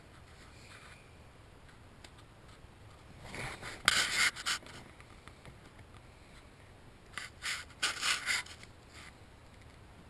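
Hands rubbing and scratching against wiring harnesses and plastic trim under a truck's dashboard, in two short bouts of rustling about 4 s and 8 s in.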